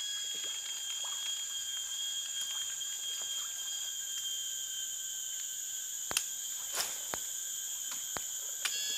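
A steady, high-pitched chorus of forest insects, several constant shrill tones layered together. A handful of sharp clicks land in the second half.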